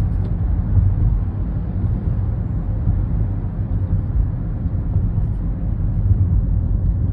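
Steady low rumble of car engine and road noise, with no distinct events.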